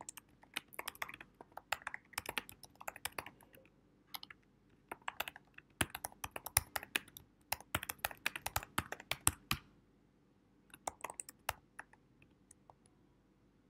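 Typing on a computer keyboard: quick runs of key clicks for about ten seconds, a short pause, then a brief flurry and a few last keystrokes.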